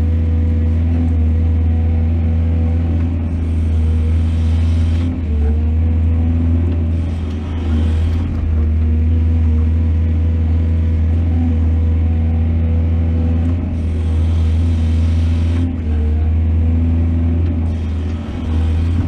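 Excavator's diesel engine running steadily with a deep hum. A few times the sound brightens and grows hissier for a second or two while the machine works.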